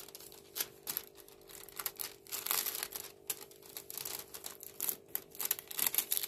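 Hand rubbing and pressing across the plastic protective film of a diamond painting canvas, a run of soft, irregular crinkles and small clicks as the folded canvas is flattened out.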